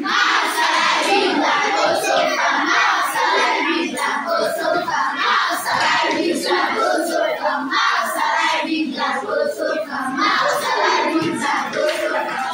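Many children's voices at once, a steady classroom din of overlapping chatter and calls.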